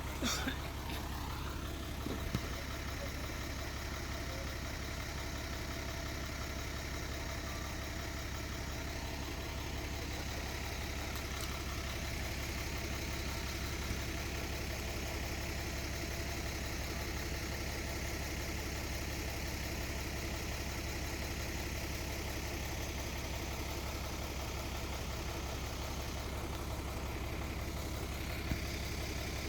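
Heavy diesel engine of earthmoving machinery running steadily at an even, low engine note, with a few light knocks.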